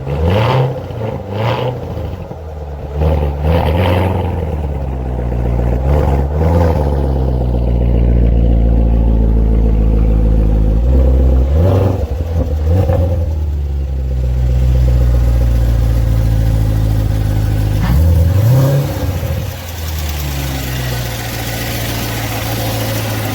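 Chevrolet C7 Corvette's 6.2-litre V8 revved in a series of short throttle blips, rising and falling in pitch, then settling into a steadier, quieter run near the end.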